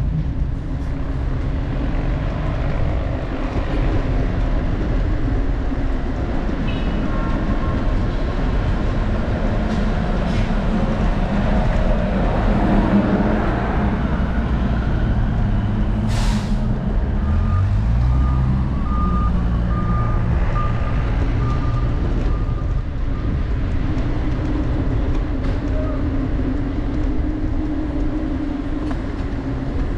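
City street traffic: vehicle engines running with a steady low rumble. About halfway through there is a short hiss, then an engine's pitch rises as it pulls away, followed by a thin high tone lasting a few seconds.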